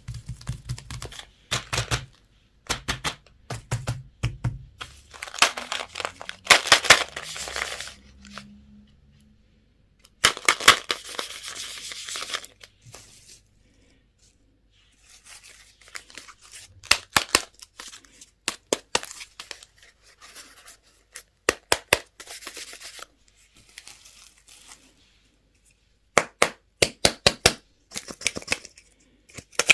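Plastic candy and toy wrappers being torn open and crinkled by hand, in stretches of rustling broken by sharp clicks and taps, with a few short pauses.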